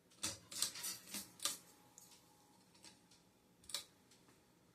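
A few sharp, irregular clicks, five close together in the first second and a half and one more near the end, from switching the ceiling fan over to medium speed on its rigged speed control.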